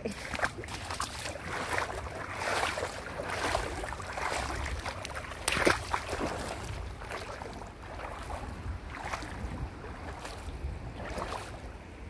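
Footsteps wading through shallow creek water, sloshing and splashing at an uneven pace, with one louder splash about halfway through.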